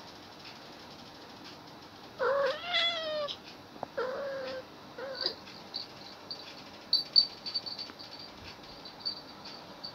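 Domestic cat meowing three times: a long call with a falling pitch about two seconds in, then two shorter ones.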